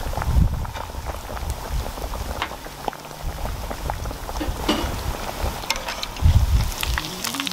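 Breaded pork cutlet deep-frying in a pot of oil at about 165–175 °C: a steady crackling sizzle dotted with fine pops. Two low rumbles break through, about half a second in and again around six seconds in.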